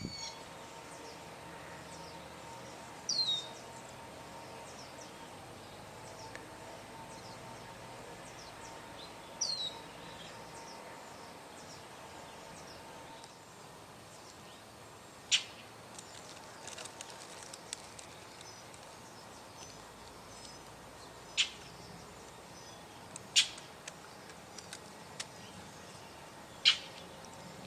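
Northern mockingbirds calling: two short high squeaky notes that fall in pitch, then a series of sharp single chip notes spaced a few seconds apart in the second half.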